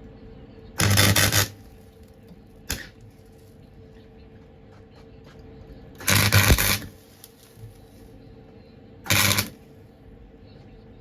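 Lincoln MIG welder striking three short tack welds on steel floor-pan repair metal, each a brief burst of arc noise lasting under a second, with a single sharp click between the first two.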